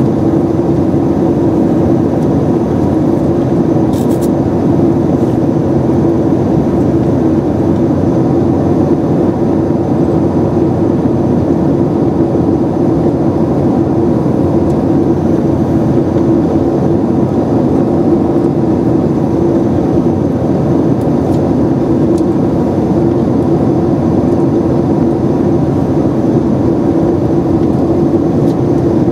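Steady cabin roar of a Boeing 767-300ER in flight, heard from a window seat beside the wing: the General Electric CF6-80C2 turbofan engines and the airflow over the fuselage make an even drone with a low hum.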